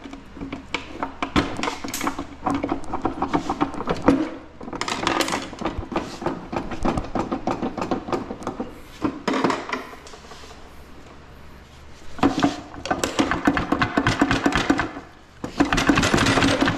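Background music with a percussive beat over steady held low tones.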